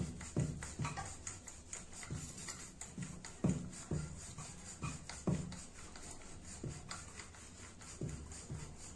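Wooden rolling pin rolling out paratha dough on a round wooden board (chakla): a series of dull knocks, about one or two a second, with soft rubbing in between as the pin goes back and forth over the dough.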